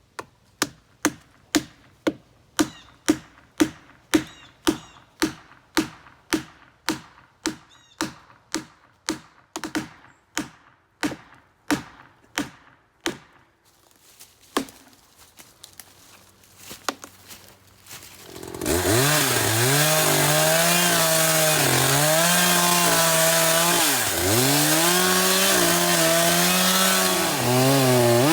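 A run of evenly spaced strikes, about two a second, then about two-thirds of the way through a chainsaw starts and runs loudly, its engine note dipping and recovering repeatedly as it cuts into a large tree trunk.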